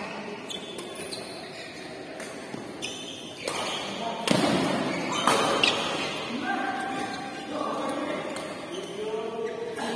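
Indistinct voices talking in the background, with a couple of sharp knocks about four and five seconds in.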